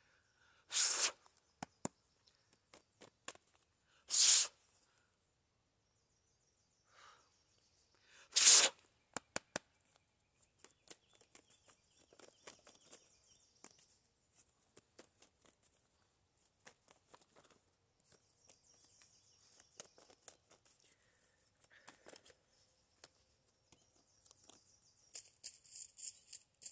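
A deck of tarot cards being shuffled: three short, loud riffling bursts a few seconds apart in the first nine seconds, then a long run of soft clicks and taps as cards are handled and laid down, with a brief rustle near the end.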